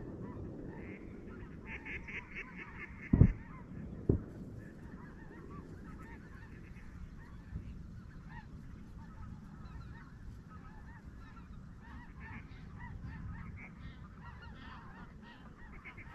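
Many geese honking at once, a flock calling continuously. Two low thumps stand out, about three and four seconds in.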